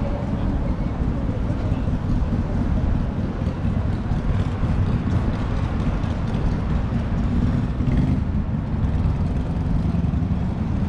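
Steady low rumble of city street traffic, with motor vehicles passing close by.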